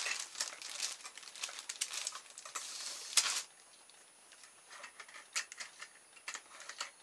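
Handling noise as a wooden barbecue skewer is pulled from its plastic-wrapped pack: rustling and light clattering of skewers, loudest just after the middle of the first half, then only a few soft clicks and taps as the skewer is handled.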